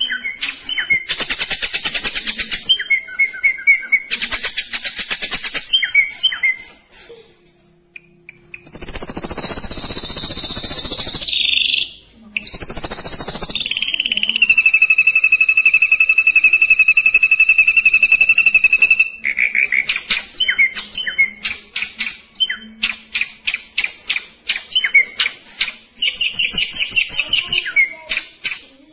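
Ashy drongo singing: rapid rolls of fast, sharp, high repeated notes. In the middle the rolls give way to a few seconds of harsh buzzy notes and a long steady whistled tone, before the rapid rolls resume.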